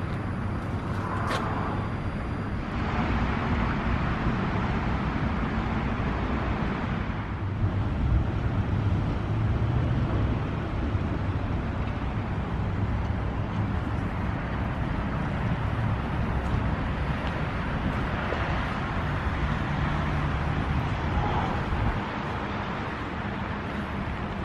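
Steady outdoor urban rumble and hiss with a low hum, as heard at a night-time tram stop beside a standing tram. It is a little louder from about eight seconds in and eases near the end.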